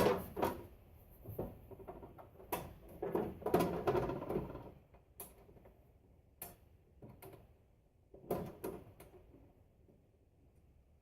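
Irregular knocks, clicks and clattering from hands working on an unplugged old bandsaw while it is being closed back up after a new blade is fitted; a sharp knock right at the start and a busier rattle a few seconds in, then scattered single knocks.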